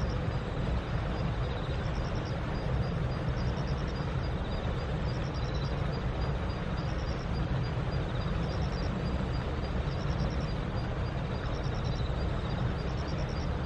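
Outdoor field ambience: a steady low rumble with short, high, pulsed trills repeating about every one and a half seconds.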